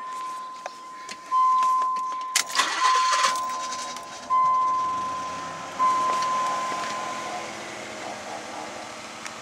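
Mazda MX-6 being started: a dashboard warning chime beeps a steady tone over and over while the starter cranks the engine about two and a half seconds in. The engine catches and then idles, and the chime stops about three quarters of the way through.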